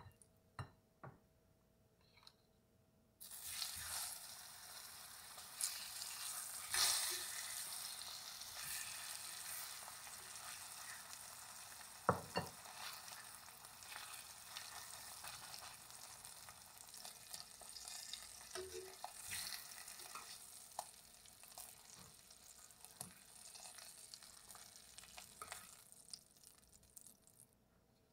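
Beef short ribs searing in hot oil in an enamelled cast-iron Dutch oven: a sizzle starts suddenly about three seconds in as the meat goes in and carries on steadily, with a few sharp knocks of metal tongs. It cuts off near the end.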